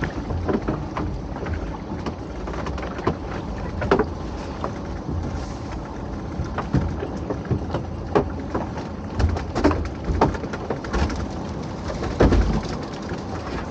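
Water splashing and dripping, with irregular knocks and clatter, over a low steady rumble.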